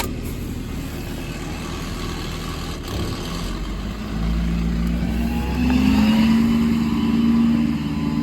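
Ford 6.7 Power Stroke V8 diesel engine running. About four seconds in it gets louder and its pitch climbs, a rising engine note from the engine speeding up under load.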